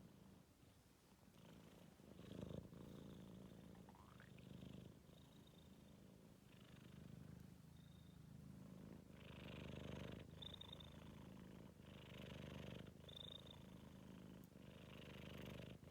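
Four-month-old kitten's faint, rhythmic rumble that swells with each breath, every second or so, which its owner can't tell apart as snoring or purring.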